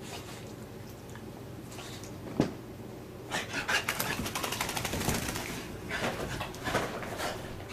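Small Lhasa-poo dog romping in a post-bath frenzy, its breathing and scrabbling heard in short bursts. A single sharp knock comes about two and a half seconds in, then a quick run of rapid ticks and huffs lasting about two seconds midway.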